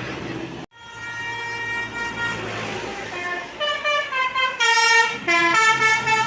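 Bus telolet horn playing a tune: one long held note about a second in, then a quick run of stepped, changing notes that grow loudest near the end, over the bus engine running.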